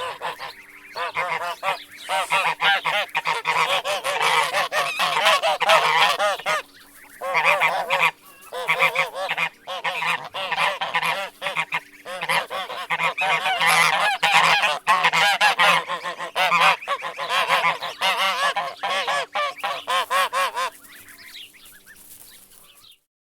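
A group of geese honking, many calls overlapping in a loud, continuous chatter with brief lulls; the honking dies away near the end.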